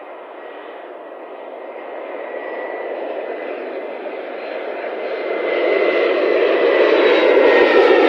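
Jet engines of an easyJet Airbus A320-family airliner on final approach, growing steadily louder as it comes in low overhead, with a thin high whine over the rumble.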